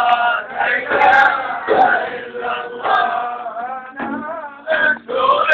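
A group singing a Sufi devotional chant, the melody rising and falling in short phrases, with a few sharp drum strikes.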